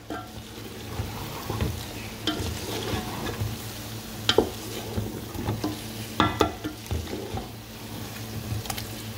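Wooden spatula stirring a thick chicken kofta and bitter gourd curry in a metal pot, scraping irregularly, with sharp knocks against the pot about four and six seconds in. The curry sizzles lightly as it fries, over a low steady hum.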